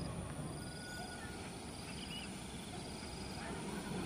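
Rural outdoor ambience: a short high chirping that repeats about once a second, with a few brief animal calls, over a faint low rumble.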